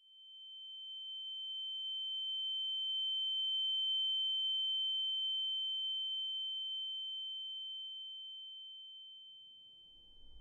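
A steady, high-pitched electronic tone that swells in from silence, peaks about four seconds in, and slowly fades away near the end.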